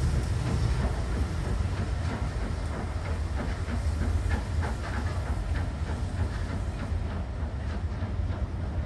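LMS Coronation Class Pacific steam locomotive No. 46233 'Duchess of Sutherland' and its support coach running through the station and away. The wheels clatter over the rail joints and pointwork, with steam hissing.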